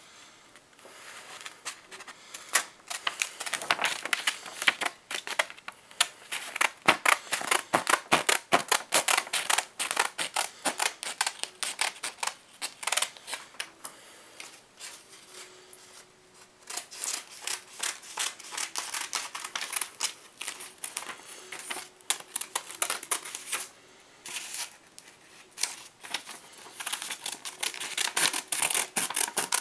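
Scissors snipping through a sheet of printer paper, cutting out a mailing label: a fast run of sharp clicking cuts and paper rustle, broken by a couple of short pauses. The scissors are blunt and struggle to cut.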